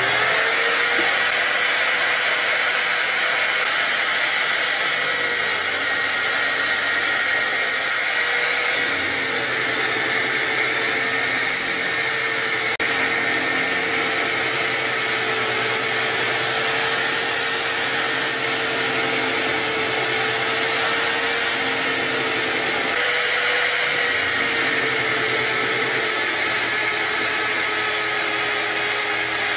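Corded electric drill driving a homemade disc sander: it spins up at the start, then runs steadily with a high whine while plywood is sanded against the disc. Its pitch shifts slightly a couple of times.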